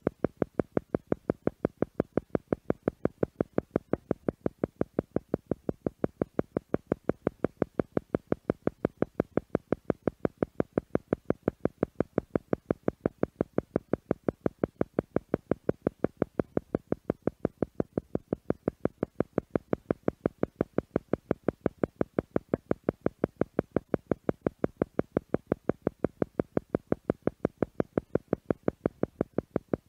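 Theta meditation sound: a steady train of short electronic tone pulses, several a second at a theta-wave rate, repeating evenly without change.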